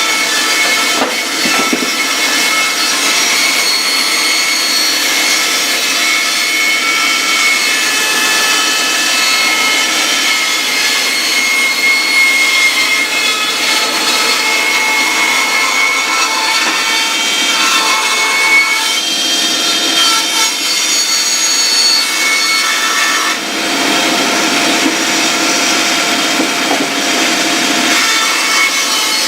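Inca wood-cutting bandsaw running steadily with a high whine while its blade cuts a large circle of wood on a circle-cutting jig; the sound fills out lower about 23 seconds in.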